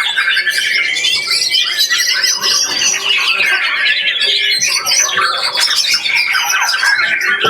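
Many caged songbirds singing at the same time, a loud, dense, unbroken chorus of overlapping chirps, whistles and trills.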